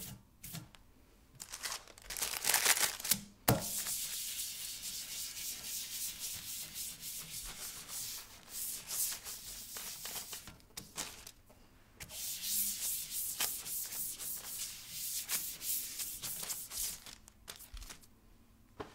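A hand wiping excess ink off an inked photogravure plate, a dry rubbing swish stroke after stroke. The rubbing comes in two long spells with a pause between them, and a sharp knock sounds about three and a half seconds in.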